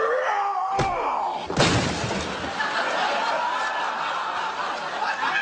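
A thrown medicine ball ends in a loud crash about a second and a half in, followed by a continuing noisy clatter and laughter.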